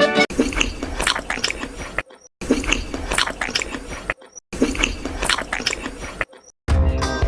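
An animal chewing and crunching food, in quick irregular crunches, broken by short silences about two seconds and about four seconds in and again near the end.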